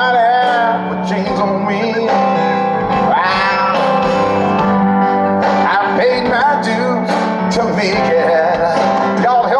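Live pop band music with a man singing lead over held chords and guitar, heard from out in the concert crowd.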